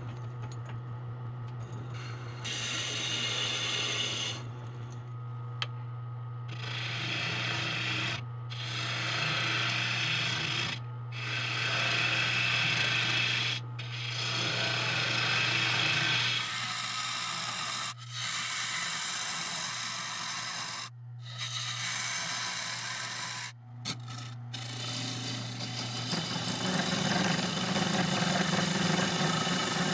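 Wood lathe running with a steady motor hum while a hand-held turning tool cuts the inside of a spinning monkey puzzle wood vase blank. The scraping cutting noise comes in passes of a few seconds, with short breaks between them. Near the end the cutting gets louder and fuller.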